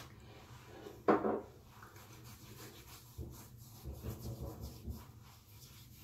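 Fingertips rubbing skin-enhancer drops into the skin of the face and chin: soft, irregular rubbing close to the microphone. A short louder thump about a second in.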